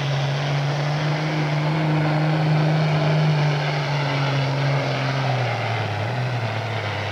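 Pulling tractor's diesel engine at full throttle under load, dragging the weight sled; a strong, steady drone that drops in pitch in steps after about five seconds.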